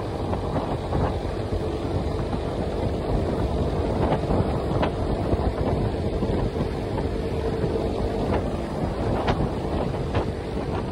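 Wind buffeting the microphone on a moving Suzuki Raider R150, over its single-cylinder engine running steadily at cruising speed.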